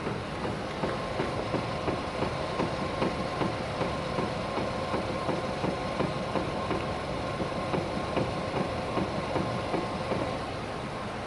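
Volkswagen Polo Sedan steering knocking, heard from outside the car: a steady run of short knocks about three a second over a steady hum, stopping shortly before the end. The knock is a sign of play in the steering.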